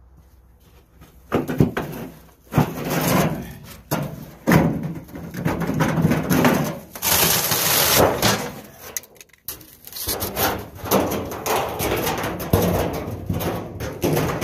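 The outer sheet-metal jacket of a water heater being pried up and peeled off the tank: sheet metal scraping and rubbing in irregular bursts, with a louder hissing scrape about seven seconds in.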